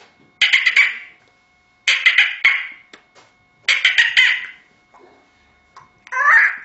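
A man's beatbox-style mouth noises made with his fingers at his lips: three short bursts of rapid popping clicks about a second and a half apart. Near the end comes a wavering, pitch-bending call blown into his cupped hand.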